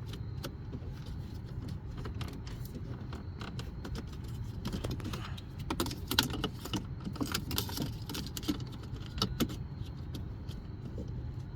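Plastic interior trim pieces being handled and fitted back into place, with scattered small clicks and rattles over a steady low hum.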